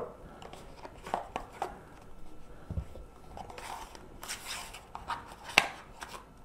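Cardboard product packaging being handled as a box sleeve is slid off: scattered light taps and clicks with a brief rustle, and one sharper click about five and a half seconds in.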